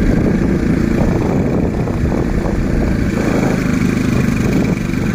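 Two-wheeler's engine running steadily while riding along a road, a continuous low drone.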